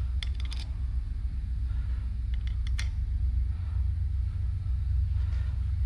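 Hand-pump oil can clicking as its trigger is worked, in two quick groups of about three strokes each: one just after the start and one around two and a half seconds in, squirting lube onto the valve tips. A steady low rumble runs underneath throughout.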